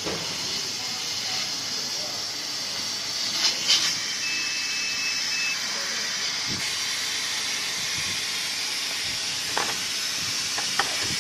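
Steady hiss of a CO2 laser cutting machine's air system running, with a few short sharp rustles of the paper card being handled.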